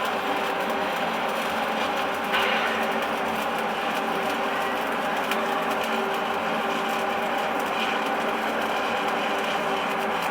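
Stick-welding arc crackling and sizzling steadily during an overhead weld, with a steady electrical hum underneath.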